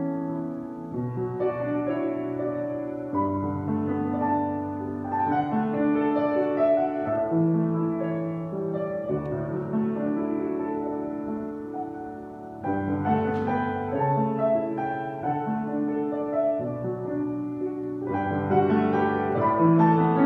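Solo piano played slowly in held chords with a melody line on top. It drops away briefly about twelve seconds in, comes back with a stronger chord, and grows louder near the end.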